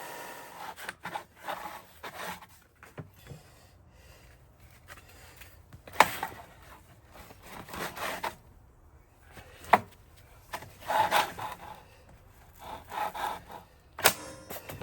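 Irregular scraping and rubbing sounds with a few sharp clicks and knocks, the loudest about six seconds in and again near the end. They sound like tools or metal being handled by hand between runs of a powered machine.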